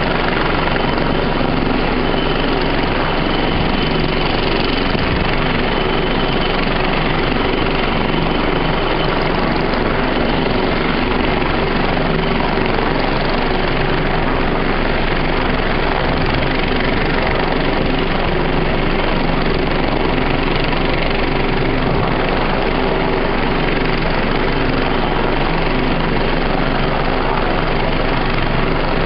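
Bell 430 helicopter's twin turboshaft engines running with the main rotor turning on the ground, a steady, loud, unbroken noise.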